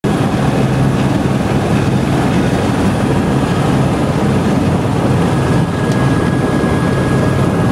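Helicopter turbine and rotor running steadily, heard from inside the cabin as a loud, even drone, with another helicopter lifting off. A faint high whine joins about five and a half seconds in.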